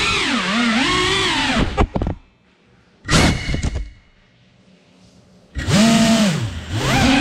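FPV quadcopter's motors whining, the pitch sliding up and down with the throttle. The motors cut out about two seconds in, a short loud burst of noise comes near the middle, and the motors spin back up about a second and a half before the end.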